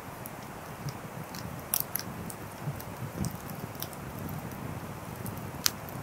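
Wood fire of burning logs crackling: a steady soft rush of flame with scattered sharp pops and snaps, a quick cluster a little before two seconds in and the loudest single pop near the end.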